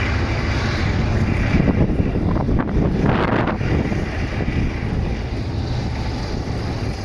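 T-72 tank's V-12 diesel engine running as it drives past on its tracks, with wind rushing over the microphone. The sound swells for a moment about three seconds in.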